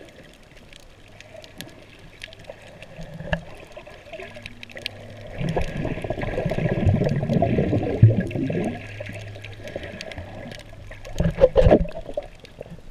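Water gurgling and bubbling around an underwater camera on a coral reef, with scattered sharp clicks throughout. It grows busier and louder from about five to nine seconds in, with a faint steady low hum under it, and ends in a short burst of splashing near the end.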